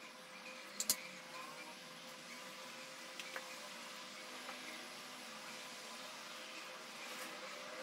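Quiet room tone with a faint steady hum and light handling noise as fingers press a fabric flower onto a small straw hat; two sharp clicks come about a second in.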